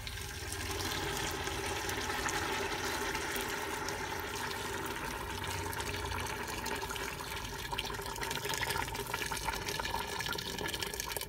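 Boiled water poured in a steady stream from a steel vessel into a stainless steel stockpot, splashing onto chicken pieces and filling the pot.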